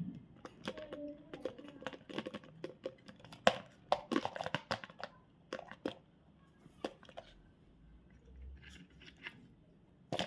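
A candy wrapper crinkling and tearing as it is opened by hand, in quick irregular crackles that are densest in the first half and thin out later.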